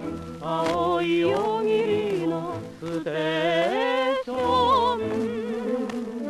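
Orchestral passage from a 1947 78 rpm shellac record, a wind and string orchestra playing a wavering melody, with faint surface crackle from the disc.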